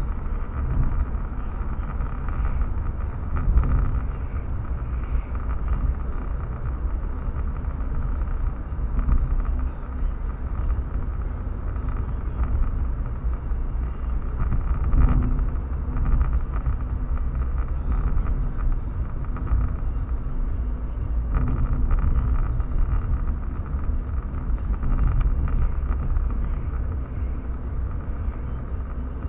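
Car driving along a road at steady speed: a continuous low rumble of engine and tyres.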